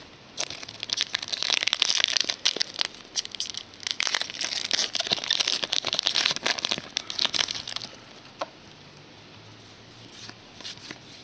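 Plastic wrapper of a trading-card box or pack being torn open and crinkled, a dense run of crackling for about seven seconds. It is followed by a single click and a few faint ticks.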